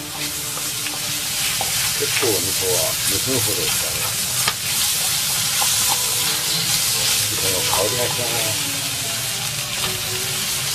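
Beef, eggplant and green pepper sizzling as they stir-fry in a frying pan, with a wooden spatula scraping and tapping against the pan as the food is turned.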